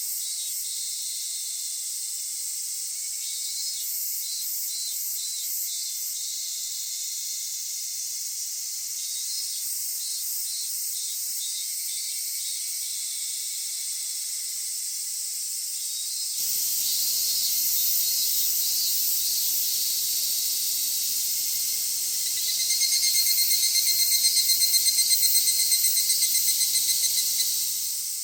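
Japanese summer cicadas chorusing: a continuous high, buzzing hiss. The sound changes abruptly a little past halfway, and a louder, rapidly pulsing cicada call sets in about four-fifths of the way through.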